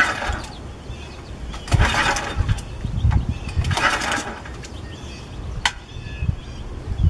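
Small gasoline engine being pull-started: three pulls of the recoil starter cord, about two seconds apart, each a short rushing whir.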